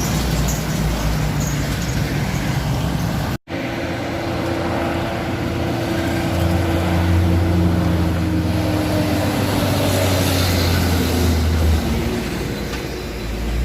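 Truck engine labouring on a steep uphill climb, its pitch sagging slowly as it loses speed, with a heavy low drone that strengthens about halfway through. The sound cuts out for an instant about three seconds in.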